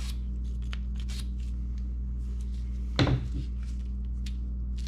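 Brass wire brush scrubbing in short, irregular scratches on a rusted steel tool freshly soaked in rust remover, with a single knock about three seconds in, over a steady low hum.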